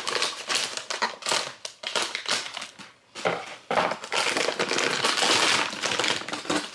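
Clear plastic vacuum-seal bag crinkling loudly as it is cut and pulled open around a folded rug, in quick crackles at first, then a short lull about three seconds in and denser, continuous crinkling after it.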